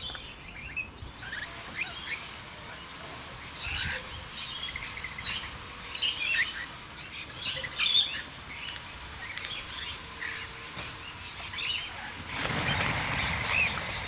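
A mixed flock of feeding birds (rainbow lorikeets, noisy miners and blue-faced honeyeaters) chirping and squawking in short scattered calls. A brief rushing noise near the end.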